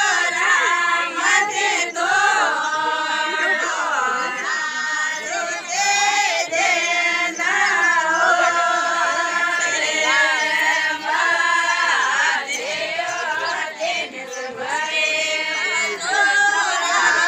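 A group of women singing a Rajasthani folk song together in unison, with long held notes.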